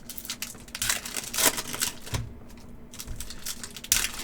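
Packs of Upper Deck trading cards being opened and the cards handled: a fast run of small clicks and rustles, with louder swishes about a second and a half in and near the end.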